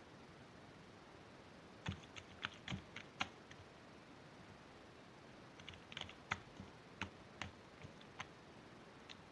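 Two short runs of small, sharp clicks and taps, the first about two seconds in and the second near the middle, over faint room tone.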